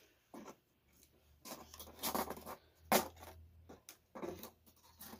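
Cardboard boxes being handled while they are measured: a few short scraping and rustling sounds, with a sharp tap about three seconds in.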